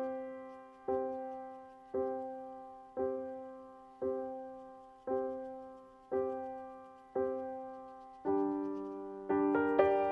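Background piano music: a soft chord struck about once a second, each fading away, with two quicker, fuller chords near the end.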